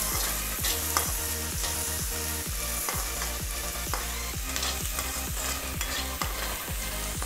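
Chopped onions sizzling in hot oil in a kadai while a metal spoon stirs them, with short scrapes and clicks of the spoon against the pan.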